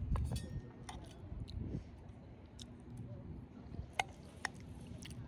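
A person chewing a mouthful of pasta, with a few sharp metal clinks of a fork against a stainless steel food jar. The loudest clink comes about four seconds in, with another just after it.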